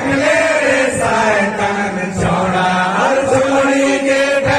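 A man singing a song through a microphone and PA loudspeaker, in long held, gliding notes over a steady sustained accompaniment tone.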